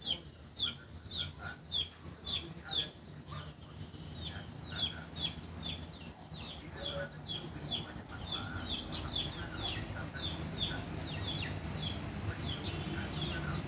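A bird chirping over and over: short, falling, high-pitched chirps, about two a second. A low background rumble grows gradually louder in the second half.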